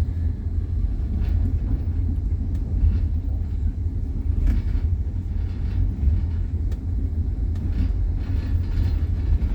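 Train running at speed, heard from inside the carriage: a steady low rumble with faint knocks of the wheels on the rails now and then.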